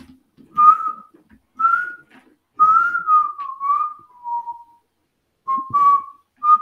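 A person whistling a short tune: a string of clear notes with slides between them, one longer falling phrase, and a brief pause about five seconds in.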